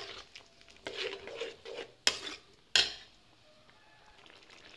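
Steel ladle stirring thick curry in a metal kadai, scraping the pan with two sharp clinks against it about two and three seconds in. The stirring stops about three seconds in.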